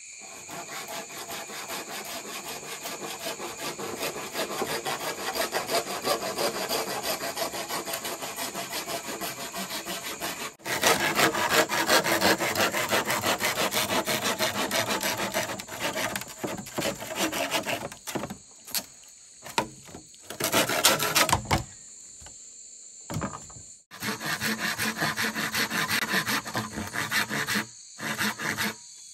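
A hand saw cutting wood in quick, even strokes. The strokes get louder about a third of the way in, then stop and restart several times in the second half. Insects buzz steadily in the background.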